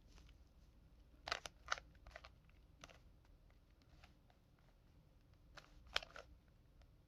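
Faint plastic clicks and clacks of a Rubik's Cube's layers being turned by hand, coming irregularly in small quick clusters, loudest a little over a second in and again about six seconds in.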